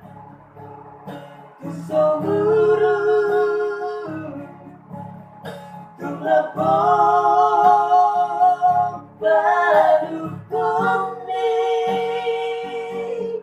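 A song sung in a high key to strummed acoustic guitar, in long held phrases with short breaks between them.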